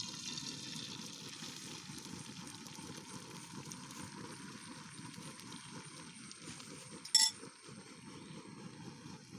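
Beaten egg omelette mixture sizzling in hot oil in a pan, loudest at the start and easing off. A single sharp metallic clink rings out about seven seconds in.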